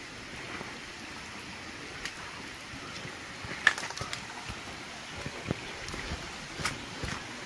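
Steady rain hiss with scattered sharp taps, the loudest about halfway through.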